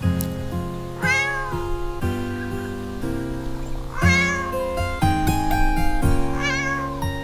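A cat meowing three times, each meow about half a second long with a wavering pitch that rises and falls, over background music of sustained notes.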